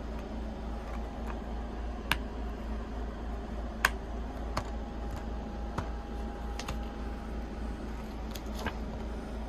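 Plastic Blu-ray case being handled and snapped shut: a scatter of sharp clicks and taps, the loudest a little under four seconds in, over a steady low hum.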